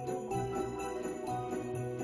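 Christmas background music led by jingle bells, with a steady beat.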